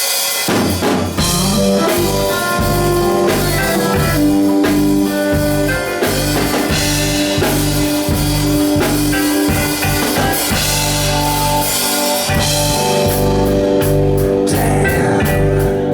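Blues-rock band playing live: drum kit, bass and electric guitar with long held notes over a steady beat, instrumental with no singing.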